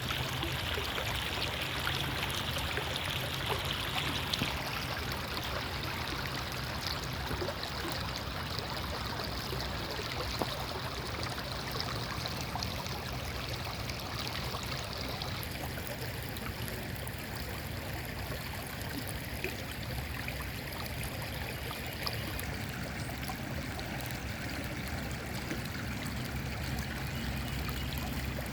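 Creek water running steadily, with a continuous rushing trickle.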